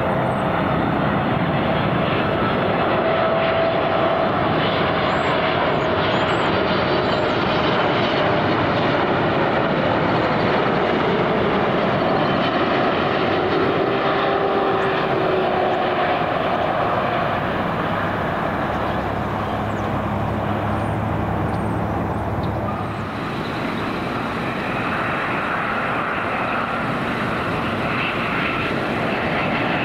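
Twin-engine jet airliner (Boeing 777) on final approach and landing: a steady jet-engine roar with a whine that slides down in pitch as the aircraft passes. About three-quarters of the way through the sound shifts as another jet airliner, a Boeing 787, comes in on approach.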